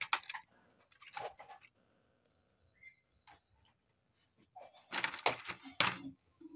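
Faint scattered clicks and knocks, with a louder cluster of them about five seconds in, over a faint steady high whine.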